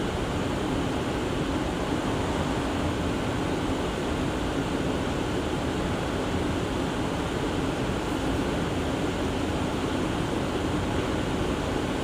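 Steady low hum over an even hiss inside a stationary R179 subway car, from the car's ventilation and onboard equipment running while it stands at a station.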